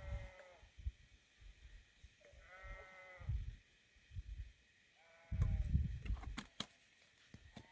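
Sheep bleating: three separate bleats a couple of seconds apart, each a short held call.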